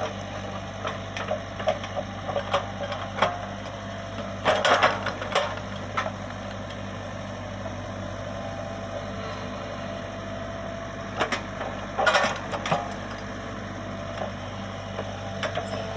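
Komatsu PC75UU excavator's diesel engine running steadily at a low hum, with scattered sharp clicks and two louder clattering bursts, about five and twelve seconds in.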